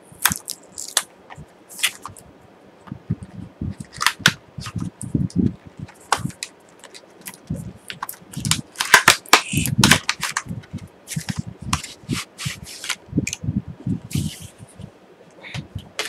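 Stiff clear plastic clamshell packaging being pried and torn open by hand: irregular crackles, snaps and crinkles of the plastic, with dull knocks of handling in between, busiest about halfway through.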